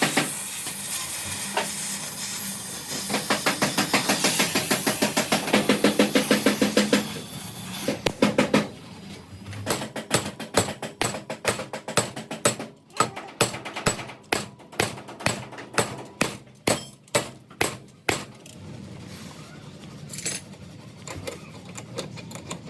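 Hammer blows on car-body sheet metal: a fast run of strikes, about five a second, for the first several seconds, then single knocks about two a second.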